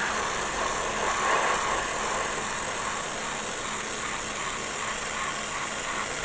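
Airbrush spraying primer onto a plastic model kit: a steady hiss of air.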